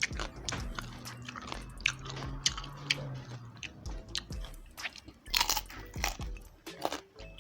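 Close-miked chewing and crunching of crispy pata, deep-fried pork leg, with many small irregular crackles from the fried skin being bitten and chewed.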